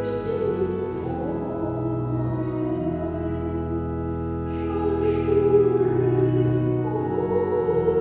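A voice singing a slow sacred song in long held notes over a steady instrumental accompaniment: the psalm sung between the readings of a Catholic Mass.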